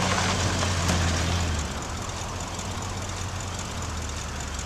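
An old car's engine running with a steady low hum and road or dust noise. It is louder for the first second and a half, then quieter and even.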